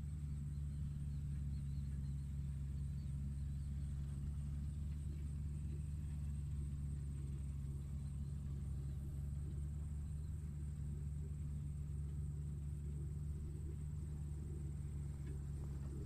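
Tractor engine running steadily, a deep, even drone with no change in speed, and a faint steady high-pitched whine above it.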